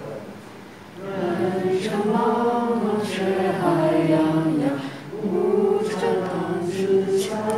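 A young woman singing a song in held, wavering notes, after a short break about a second in.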